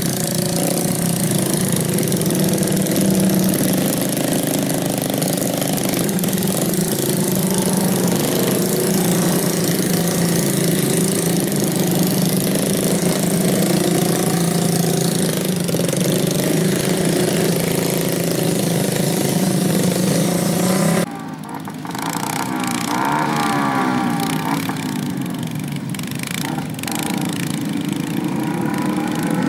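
Small motorcycles loaded with sacks of rice grain running through deep mud, their engines steady. About two-thirds of the way in, the sound cuts to a single trail bike, its engine revving up and down.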